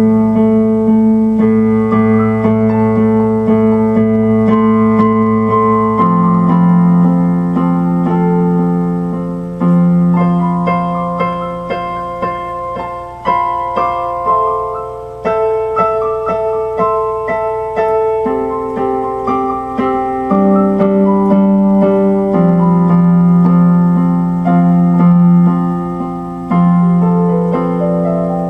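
Instrumental background music: slow, held keyboard chords that change every few seconds.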